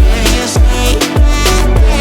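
Background music: a song with a steady deep bass beat about twice a second under sustained melody lines.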